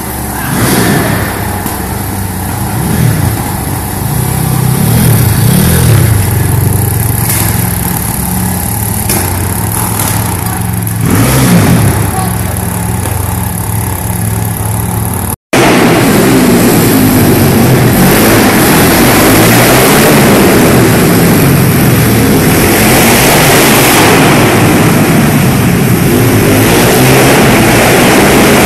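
Small pit bike engines revving up and down, the pitch rising and falling with the throttle. After a brief dropout about halfway, a loud, steady engine drone carries on.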